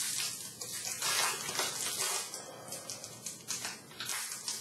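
Crinkling and tearing of a trading-card pack wrapper as it is opened by hand, an uneven run of sharp crackles.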